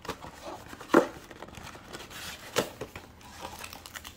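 Small cardboard card box being pried and torn open by hand: rustling and scraping of the cardboard, with two sharp knocks, one about a second in and one a little past halfway.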